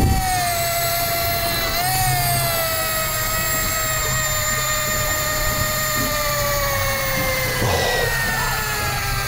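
Fishing reel spool whining as line pays out into deep water, the whine slowly falling in pitch with a brief wobble about two seconds in, over a steady low hum.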